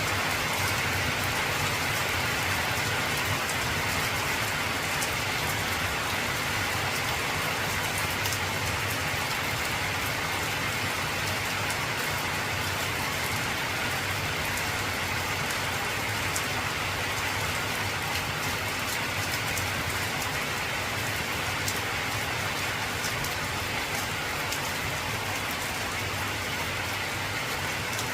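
Heavy rain falling steadily on an old corrugated zinc roof sheet: a dense, even hiss of drops on metal, with scattered sharper taps.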